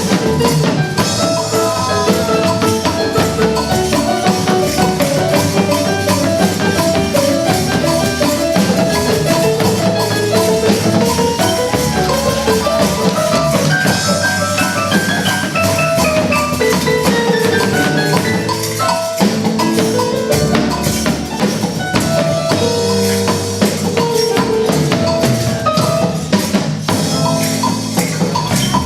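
Instrumental music with melodic mallet-percussion runs, like a marimba or xylophone, over a steady beat of tambourine and drums.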